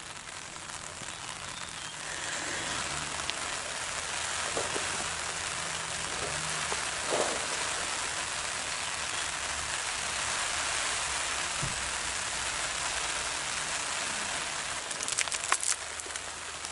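Pan contents sizzling in a frying pan on a burning Swedish fire log: a steady hiss that grows louder about two seconds in, with a few sharp clicks near the end.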